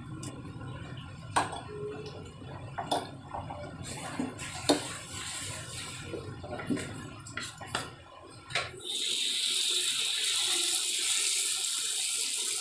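Broth bubbling in a metal pot, a low rumble with a few sharp clicks and knocks. About nine seconds in it gives way to a steady, louder sizzle of bakwan (vegetable fritter) batter frying in hot oil in a wok.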